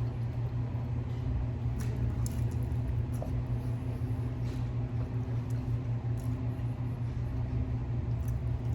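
A steady low hum runs throughout, with a few faint short clicks of eating.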